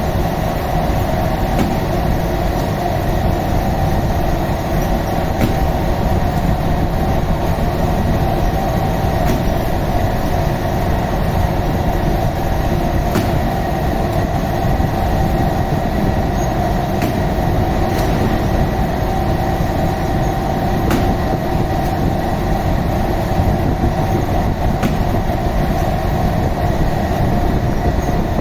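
Steady loud machine rumble with a constant hum, and a few faint clicks.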